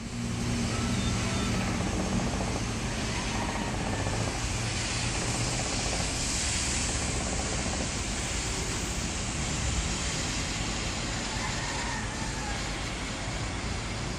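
Outdoor town ambience: a steady wash of noise with a low engine hum that fades after the first few seconds.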